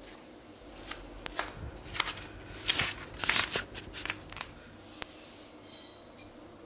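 Rustling of clothing and skin on a foam exercise mat as two people shift position during an assisted stretch, with a run of sharp clicks and scuffs that is busiest in the middle and a faint high squeak near the end.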